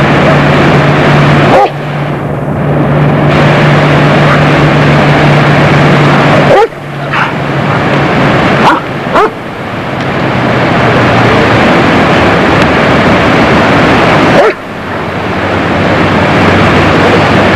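Loud, steady rushing noise, like river water or wind on the microphone, broken several times by sharp dog barks. After each bark the overall level drops suddenly and creeps back up.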